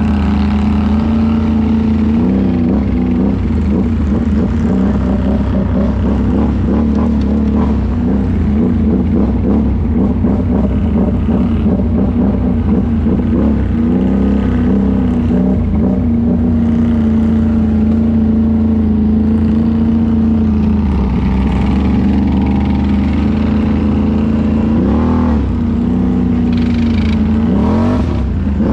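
ATV engine running steadily while riding, its pitch wavering with the throttle and rising and falling in a few short revs near the end.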